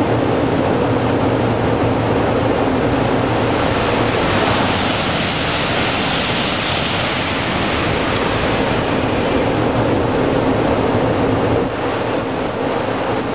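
N700 series Shinkansen passing through the station at full speed, a loud rushing noise that swells from about four seconds in and eases off near the end, with wind buffeting the microphone. A steady low hum runs underneath.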